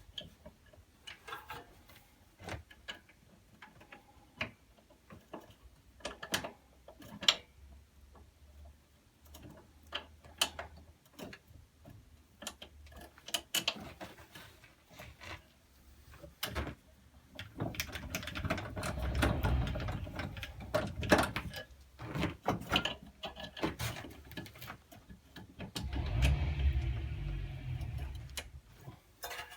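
Ratchety metal clicking and clanking of a service lift being worked to raise a small tractor, with two louder spells of rumbling and clatter, about two-thirds of the way through and near the end.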